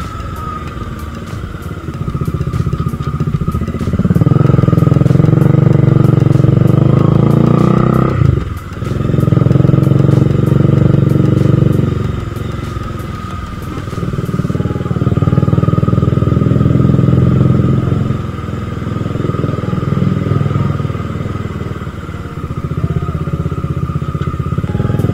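Bajaj Dominar 400's single-cylinder engine under way on the open road, swelling loud as the throttle is opened and easing off between pulls, with a brief sharp cut about eight seconds in, like a gear change. A steady high whine runs underneath.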